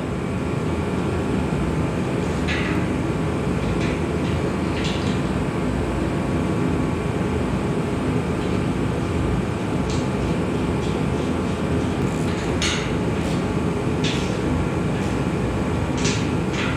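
A steady workshop rumble, with a few short metallic clicks and clinks scattered through it as a bracket is bolted onto a tailgate.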